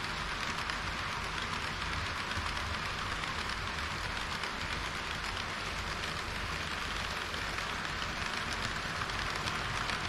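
HO-gauge model trains, an EH200 electric locomotive with tank cars and KiHa 40 railcars, rolling over the track close by: a steady rushing noise of metal wheels on the rails over a low rumble.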